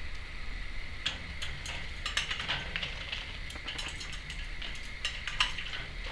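Timneh African grey parrot splashing in a shallow water bowl: irregular small splashes and light ticks.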